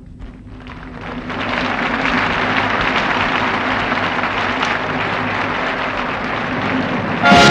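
Concert audience applauding, the clapping swelling over the first second or two and then holding steady. Near the end the orchestra comes in suddenly and loudly.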